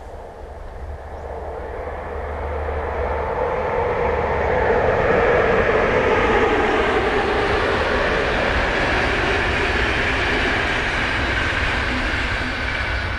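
International passenger train running past on the line: a broad rumble of wheels on rail that swells over the first five seconds, holds steady, and begins to ease near the end.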